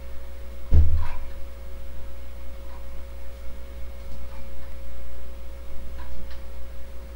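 Steady low hum with a thin steady tone over it, faint scattered ticks, and a single dull thump about a second in.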